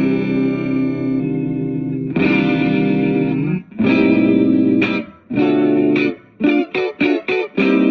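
Electric guitar played through an A/DA Pitchtraq pitch-shifting effect: held chords for the first few seconds, two shorter chords, then a run of short, choppy chords near the end.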